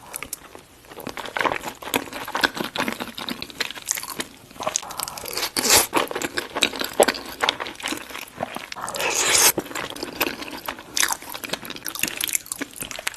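Chewing and crunching of chili cheese baked fries: a quick run of crisp bites and mouth clicks, with a longer, wetter crunching stretch about nine seconds in.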